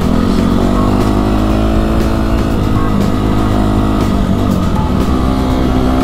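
Dirt bike engine running under way at a steady moderate speed, its pitch dipping and recovering a few times as the throttle is eased and opened.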